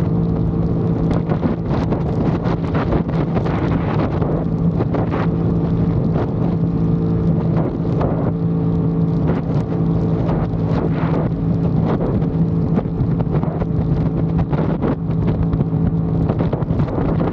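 Aprilia Tuono 660 Factory's parallel-twin engine running at steady revs, its pitch holding level, with wind buffeting the microphone.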